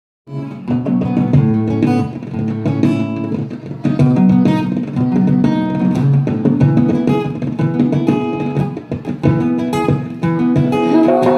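Live acoustic band playing an instrumental passage: acoustic guitar strummed and picked over hand-drum strokes on a djembe.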